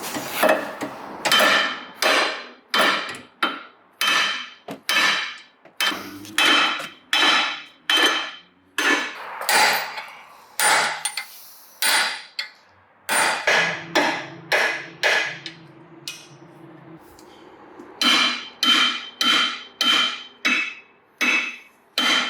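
Hammer blows on metal, repeated about twice a second, each followed by a short metallic ring. There is a pause of about two seconds near the end before the blows start again.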